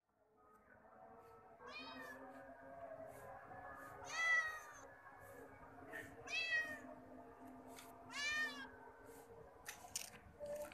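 Cat meowing four times, each meow about half a second long and rising then falling in pitch, a couple of seconds apart. A few short clicks come near the end.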